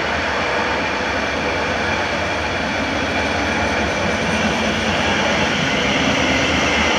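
Stadler Flirt electric multiple unit of two coupled units running past along the platform: a steady rumble and hiss of wheels on rail and running gear, slowly growing louder, with a thin high tone joining in during the second half.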